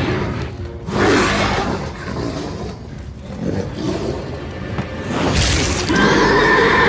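Dramatic film score mixed with fantasy sound effects. About five seconds in comes a loud, drawn-out dragon roar.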